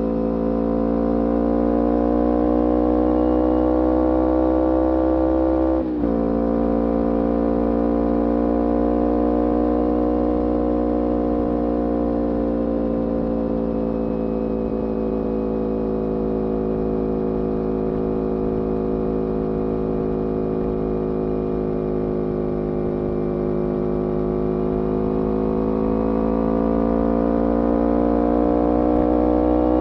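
2011 Kawasaki Ninja 250R SE's parallel-twin engine, breathing through a full Graves racing exhaust, running steadily at sustained revs. The pitch climbs and sags slowly, with a brief break and a small drop about six seconds in.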